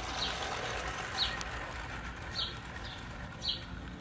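A bird chirping repeatedly, short high chirps about once a second, over a steady background rumble.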